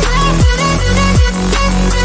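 Electronic background music: a deep kick drum about every three-quarters of a second under held bass notes and a short synth melody.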